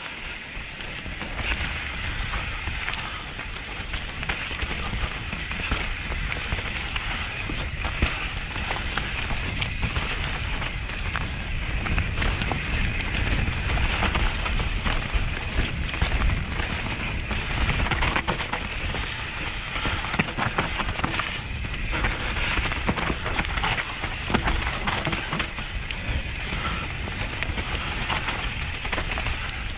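Mountain bike riding fast down a forest trail, its tyres rolling and skidding over dry leaf litter with a constant crackle and many small clicks and ticks, over a steady low rumble.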